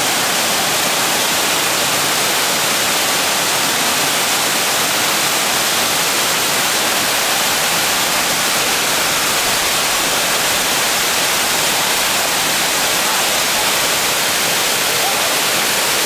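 Waterfall pouring over rock into a pool: a loud, steady rush of falling white water.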